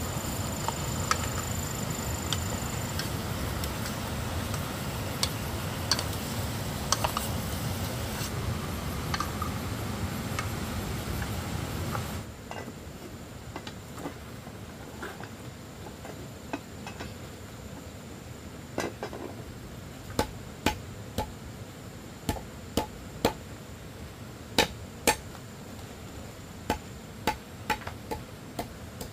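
A steady rumbling noise with scattered clicks cuts off about twelve seconds in. After it come irregular sharp knocks and clinks of hard objects striking, thickest near the end.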